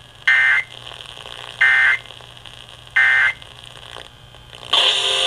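Emergency Alert System end-of-message data tones over FM radio: three short, identical buzzy bursts about 1.3 seconds apart, marking the end of the alert. The station's music comes back in near the end.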